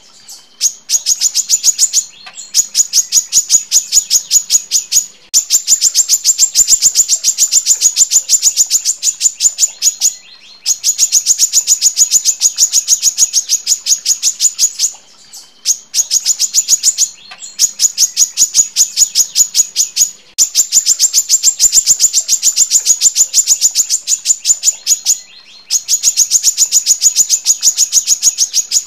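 Female brown-throated sunbird (kolibri kelapa) singing long, dense runs of rapid high-pitched chipping notes, about ten a second. Each run lasts a few seconds, with brief pauses between runs.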